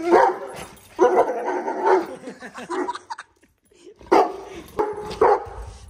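A dog barking repeatedly, about six to seven short barks with a brief pause a little past the middle.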